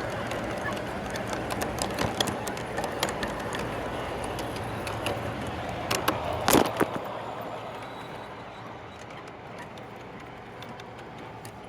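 G scale model train running on its track, a steady rolling rumble with scattered clicks from the wheels and rail joints. A cluster of sharp clicks comes about six and a half seconds in, after which the sound falls away and gets quieter.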